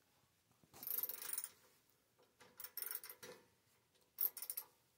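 Ratchet of a small socket wrench clicking in three short runs as it is swung back and forth, backing a screw out of the back panel of a vacuum-tube TV cabinet.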